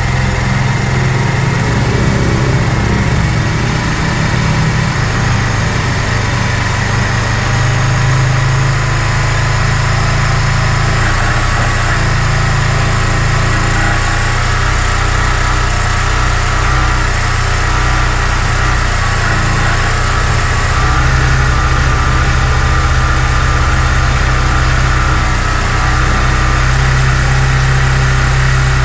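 Kawasaki Barako II's single-cylinder four-stroke engine idling steadily on choke just after its first start, warming up unrevved while the oil circulates.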